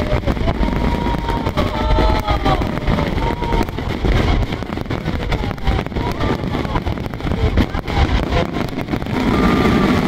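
Crowd of fireworks spectators talking over a steady low rumble, with many short crackles running through it.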